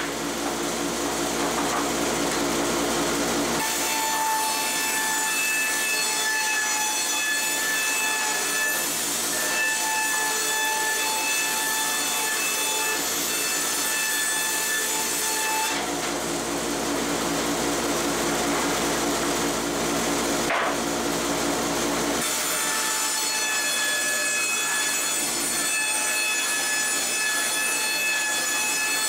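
Hitachi CB75F resaw band saw with a 3-inch, 1-tooth-per-inch blade ripping rough white oak freehand in two long cuts, each a steady whine over a rasping hiss. The first cut starts a few seconds in and ends about halfway through. The second starts about three-quarters of the way through. Between them the saw runs idle with a lower hum.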